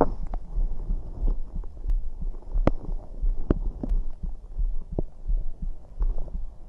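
Stomach and gut gurgling picked up close against the belly after drinking carbonated soda: a low, throbbing rumble with scattered small pops and clicks.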